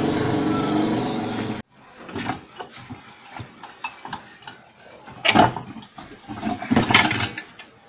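Electric screwdriver motor running steadily, then stopping abruptly about one and a half seconds in. After it come light clicks and clatter of small metal parts and tools being handled, with two louder knocks about five and seven seconds in.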